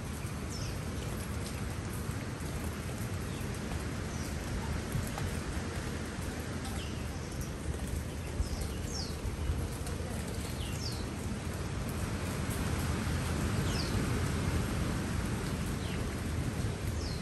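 Steady rain falling on leafy garden plants: an even patter and hiss of drops that grows a little louder in the second half. A few short, high, downward-sliding chirps are scattered through it.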